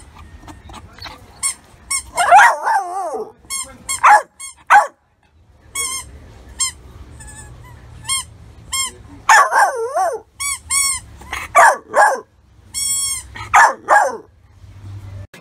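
Blue-grey pit bull-type puppy barking over and over in short, high barks and yips. Twice it breaks into a wavering whine-howl, and near the end it gives one longer, steady howl.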